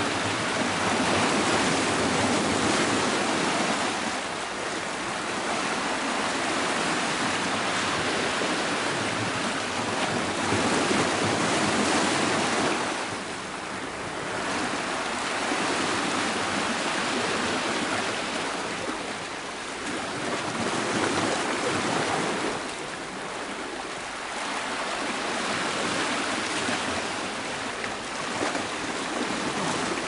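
Sea surf washing against shoreline rocks, a continuous rush of water that swells and eases every several seconds.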